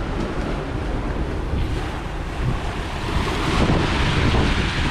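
Wind buffeting the microphone over the rush of a sailboat's foaming wake and open-sea waves, the hiss growing louder about three seconds in.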